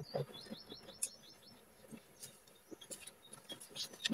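A small bird calls a quick run of about ten short, high chirps lasting about a second, with a single high note near the end. Faint clicks and taps from people eating are scattered throughout.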